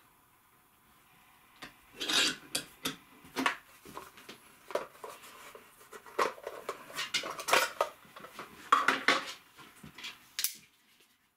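Irregular metallic clinks, clicks and rattles of hand tools being handled: a bench vise's sliding metal handle and a folding saw being taken from its clear plastic case and opened.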